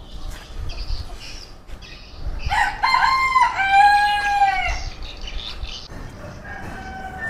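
Rooster crowing once, beginning about two and a half seconds in: a few short notes running into a long drawn-out final note. Fainter calls follow near the end.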